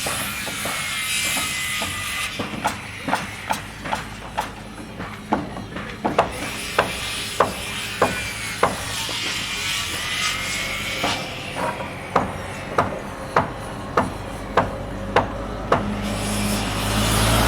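Construction-site hammering: a hammer striking again and again, about one and a half blows a second, over a steady background of site noise. Near the end a louder vehicle engine rumble swells up.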